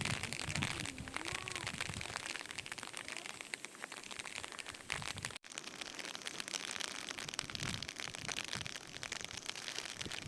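Steady rain, a dense patter of fine drops.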